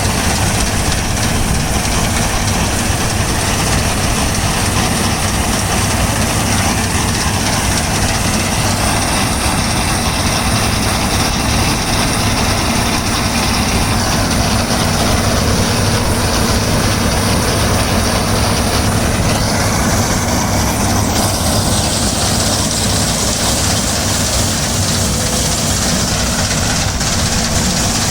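New Holland TC5.30 combine harvester running steadily under load, its engine and machinery making a constant heavy drone with a high-pitched whine over it.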